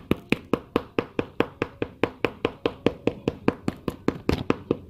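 Rapid, even tapping on a sneaker's rubber sole, about five strikes a second: the freshly glued sole being pounded so the contact glue grips.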